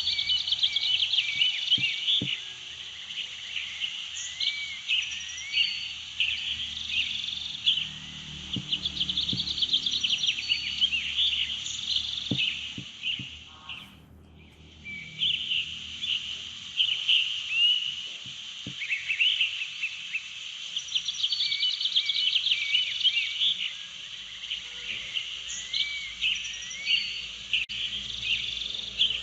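A chorus of many small birds chirping and trilling together, dense and continuous; it fades out briefly about halfway through and fades back in.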